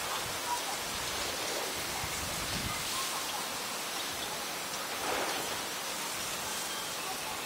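Steady, even outdoor hiss, with a faint brief rustle about five seconds in.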